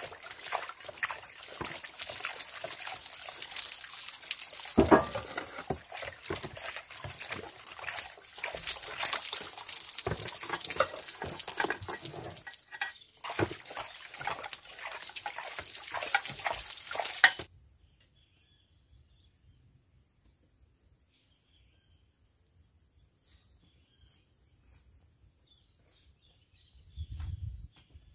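Dishes being washed by hand under running water, with plates, pots and cutlery clattering. It cuts off suddenly about two-thirds of the way in, leaving near silence with a faint steady high whine and a few faint ticks.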